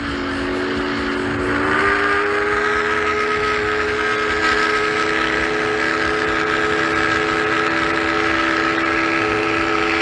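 Steam whistle of the ocean liner RMS Oceanic sounding one long blast: several steady tones at once forming a chord, which steps up slightly in pitch about two seconds in and then holds.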